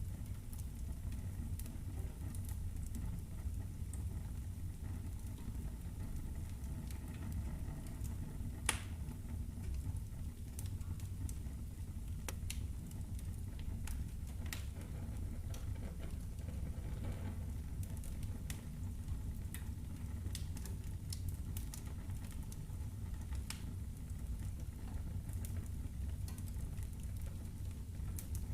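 Wood fire burning in a fireplace: a steady low rumble of flames with sparse crackles and pops from the burning logs, one sharper pop about nine seconds in.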